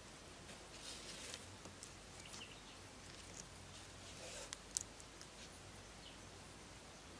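Faint scratching and rustling of bamboo poles and lashing being handled and tied, with scattered small clicks and one sharper click a little under five seconds in.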